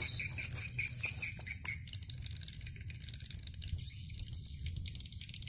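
Swiftlets chirping from a swiftlet-farming house, a rapid run of high chirps about five a second that thins out after the first second and a half, over a steady thin high tone and a low rumble.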